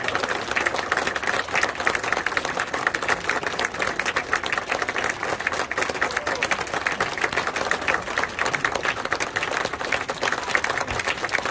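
Large audience applauding: many hands clapping together in a dense, steady mass.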